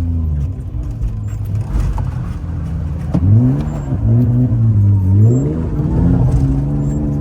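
BMW straight-six engine running and being revved: the revs rise about three seconds in and hold, drop back briefly, then rise again and hold.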